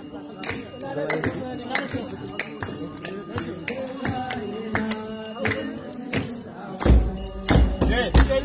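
Voices singing a chant over jingling, rattling percussion, with deep drum beats coming in near the end.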